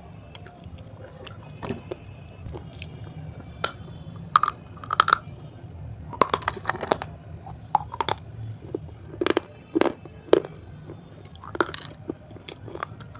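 Crunchy dry clay being bitten and chewed close to a clip-on microphone: irregular sharp crunches, thickest and loudest in the middle.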